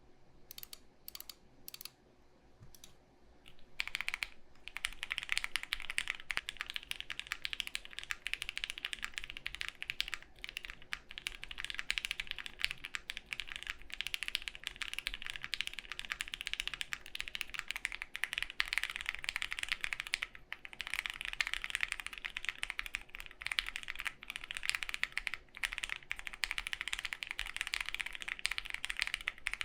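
Studio Kestra Nue mechanical keyboard, a plateless build with foam and lubed linear switches, being typed on. A few single keystrokes come first, then fast continuous typing from about four seconds in. A faint steady fan hum runs underneath.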